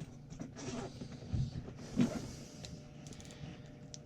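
Steady low hum of a running boiler circulator pump that is not moving water through the hot-water loop, with a couple of knocks and some rustling from handling.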